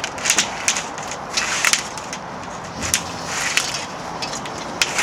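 Irregular scraping and knocking: a string of short, uneven crunching strokes over a steady background hiss.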